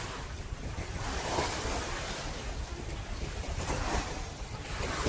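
Wind rumbling on the phone microphone over the wash of sea waves, the noise swelling and easing every second or so.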